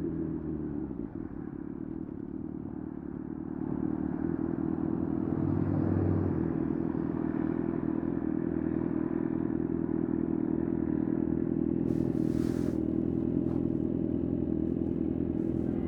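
Kawasaki ZX-6R inline-four engine on the move: revs fall and it quietens in the first second or so, then it picks up about four seconds in and holds a steady, low engine speed. A short rush of hiss about twelve seconds in.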